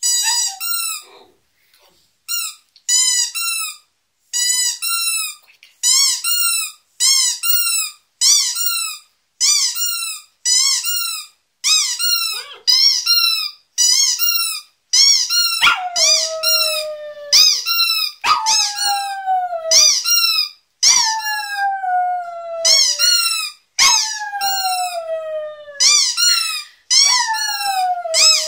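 A rubber squeaky toy squeezed over and over, about two squeaks a second. About halfway through, a Lhasa Apso joins in with long howls, each about two seconds and falling in pitch, repeated about five times over the squeaks.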